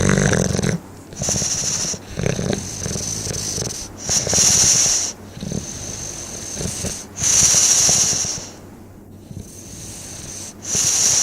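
Snoring in slow, repeating breaths a few seconds apart, with a rattling buzz on the breaths and a high whistling wheeze on several of them.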